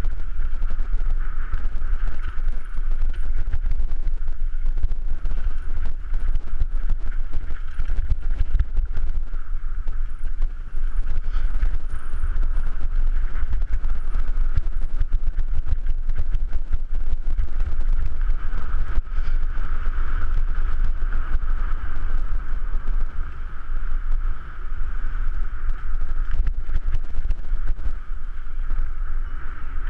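Mountain bike rolling fast down a rough dirt singletrack: constant rattling and knocking over the bumps, with wind rumbling on the microphone.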